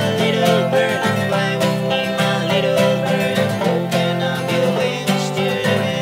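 Acoustic guitar strummed and banjo picked together in a steady-rhythm folk/bluegrass tune.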